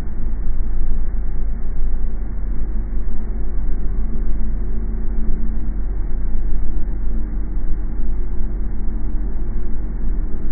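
Steady low rumble of a car driving, with a faint droning hum that comes in about three seconds in.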